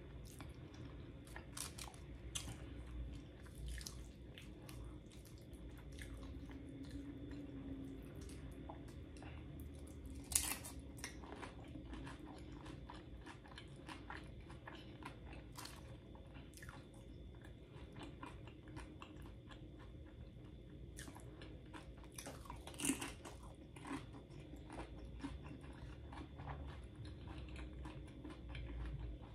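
Close-up mouth sounds of someone chewing a mouthful of loaded nachos at length: soft wet clicks and crackles throughout, with two louder crunches, about ten seconds in and again after about twenty-three seconds. The mouthful holds a chewy piece of Chipotle steak.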